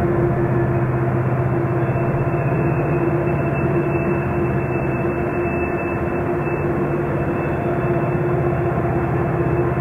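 Camera drone's own motors and propellers running steadily: a constant hum with a high whine over a rushing noise.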